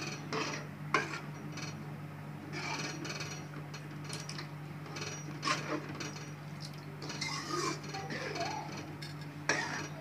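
A steel ladle stirs thin garlic kuzhambu in an aluminium kadai, scraping and sloshing, and clinks sharply against the pan about a second in, at about five and a half seconds, and near the end. A steady low hum runs underneath.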